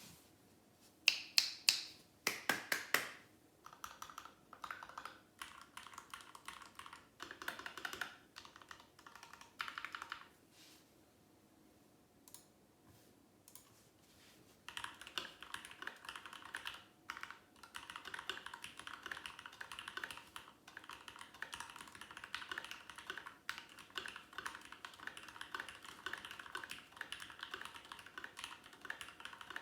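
Typing on a RAMA Works Koyu mechanical keyboard with Krytox 205g0-lubed Thic Thock Marshmallow switches, GMK keycaps and an internal dampener. A quick run of the loudest keystrokes comes near the start, then scattered presses and a pause of a few seconds around the middle. Steady, fast typing follows for the second half.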